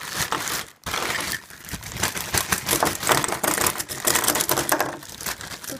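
Plastic packaging crinkling and crackling as hands rummage through a mail package, a dense run of rapid clicks with a short pause just under a second in.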